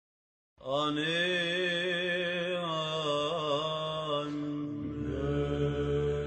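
Slow chanted singing: a melodic voice line with a wavering vibrato over a held low note, starting abruptly about half a second in.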